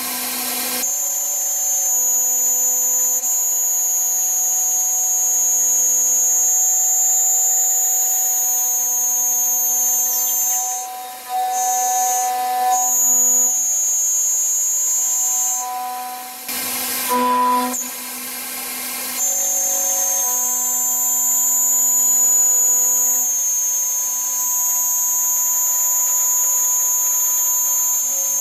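CNC machining-centre spindle running an end mill through aluminium profile, milling a slot: a steady high-pitched whine over a lower cutting tone. Near the middle it is broken twice by a brief rush of noise.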